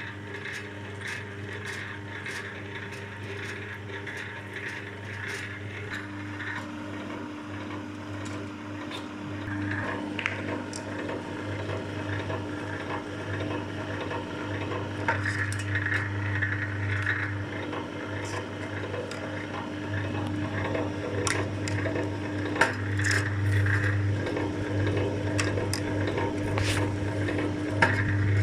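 MQ-38 electric cable-stripping machine running, its motor and reduction gearbox humming steadily while cable is drawn between the rollers and its insulation is slit, with scattered clicks and scraping. It grows gradually louder toward the end.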